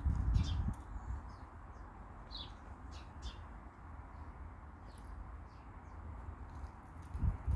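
Small birds chirping in short, scattered calls, over a steady low rumble that swells loudly over the first second or so and briefly again near the end.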